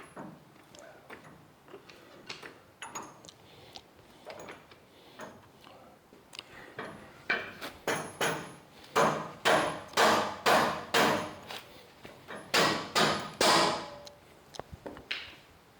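Hammer blows, about two a second, in two runs over the second half, the loudest strikes near the end, after a stretch of lighter knocks and clatter.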